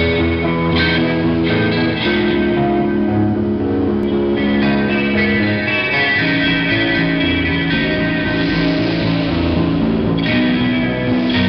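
Rock band playing an instrumental passage live: distorted electric guitars and bass guitar over a drum kit, through amplifiers, loud and steady.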